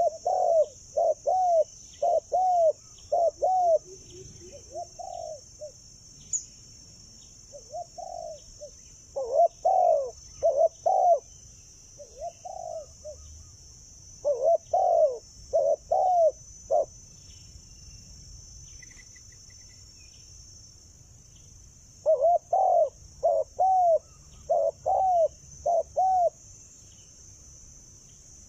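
Spotted doves cooing in four bouts of repeated short coos, each note rising and falling in pitch, with pauses of a few seconds between bouts.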